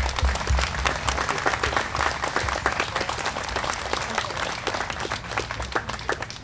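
A small crowd applauding, many hands clapping densely, thinning out near the end.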